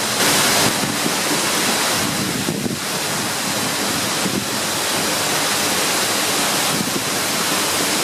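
The 60-metre Seljalandsfoss waterfall heard from close behind its falling curtain: a steady, loud rush of water, with wind rumbling on the microphone.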